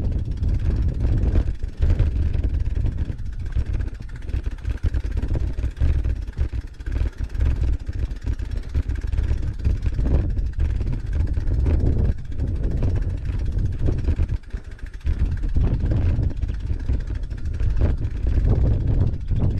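Gusty low rumble of wind buffeting the microphone of a handlebar-mounted camera on a bicycle, with the tyres rolling over a dirt singletrack. The rumble is uneven, with brief dips.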